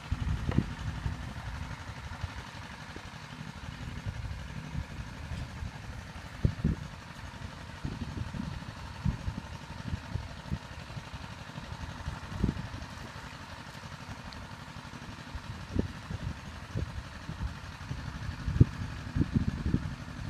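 Wind buffeting the microphone in irregular low rumbles and thumps, over a faint steady outdoor hiss.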